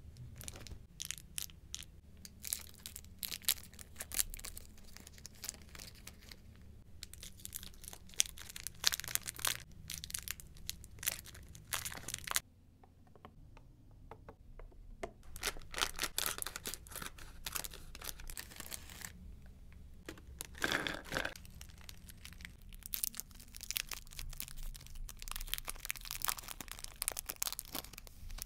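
Plastic and foil candy wrappers crinkling and tearing as chocolate wafer bars and a chocolate bar are unwrapped by hand. The crinkling comes in long bursts, with a couple of short quiet gaps.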